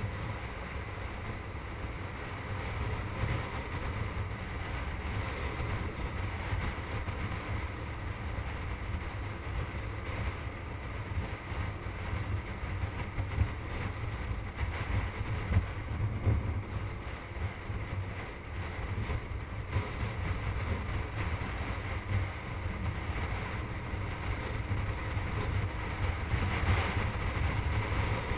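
Wind rumbling on a motorcycle-mounted camera's microphone at highway speed, over the steady drone of the motorcycle and its tyres on the road. Near the end, the hiss rises briefly as a car passes close alongside.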